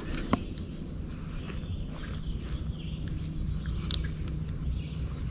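A steady, high insect trill that stops about three seconds in, over a constant low outdoor rumble. There is a single click just after the start and a short high chirp about four seconds in.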